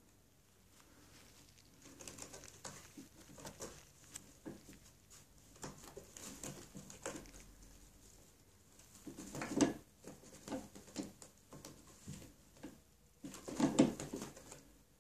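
A cat climbing a sisal- and plush-covered cat tree: its claws scratch and scrabble on the post and platforms in short irregular bouts, with two louder clusters of scrabbling and knocks, one about halfway through and one near the end.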